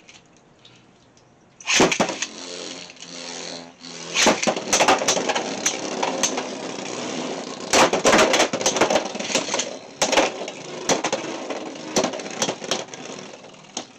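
Beyblade X tops Whale Wave and Black Shell launched into a plastic stadium about two seconds in, then spinning with a whirring rattle and many sharp clacks as they collide.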